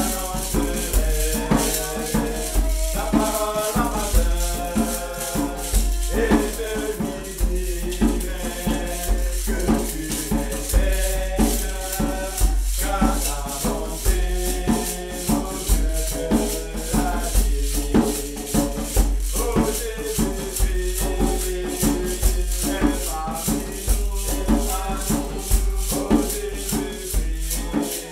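Voices singing a hymn together, with a woven basket shaker keeping a fast, steady rhythm.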